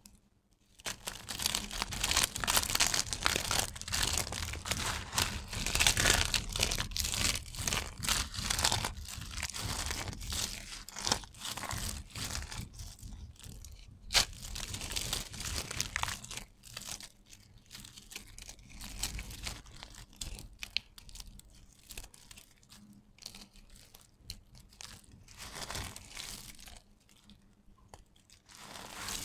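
Bars of stripe-carved soap crushed in bare hands: crunchy, crackling crumbling as the bars break into flakes. It is thick in the first ten seconds or so and sparser after, with one sharp crack about fourteen seconds in.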